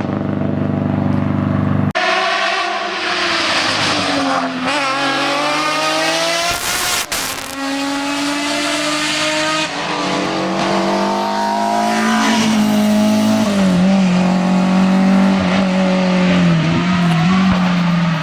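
Hillclimb race car engine at full throttle, revs climbing and dropping again and again through gear changes, with a sharp crack about seven seconds in. The engine note changes abruptly about two seconds in.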